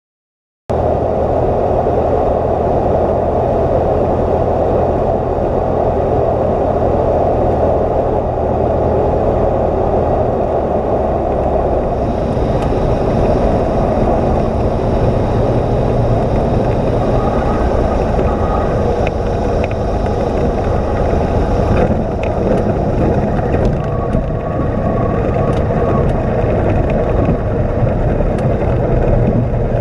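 Cessna 172's piston engine and propeller running steadily with wind rush, heard from inside the cockpit during the landing approach and rollout. The sound cuts in abruptly less than a second in, and the low engine note shifts about halfway through.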